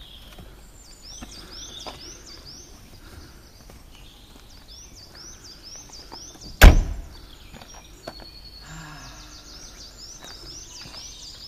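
A Volkswagen hatchback's tailgate is slammed shut once, a single loud thunk about two-thirds of the way through. A bird chirps over and over in short rising notes, about three a second.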